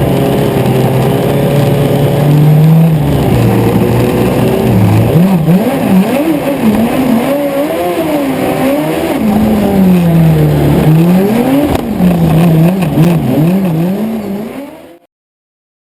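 Honda Hornet 600 inline-four motorcycle engine in a Piaggio Ape racing three-wheeler, heard on board under hard driving: held at steady revs at first, then revving up and down over and over. The sound fades and cuts off about a second before the end.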